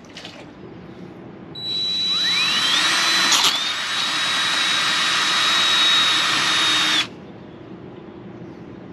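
Cordless drill with a wood bit boring into a solid plastic mounting base. The motor spins up with a rising whine, then runs at a steady high whine for about five seconds, with one sharp crack partway through, and cuts off abruptly.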